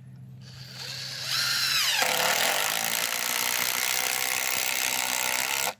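Cordless impact driver driving a screw: the motor winds up, its whine drops sharply in pitch as it comes under load about two seconds in, then it runs steadily under load and stops suddenly near the end.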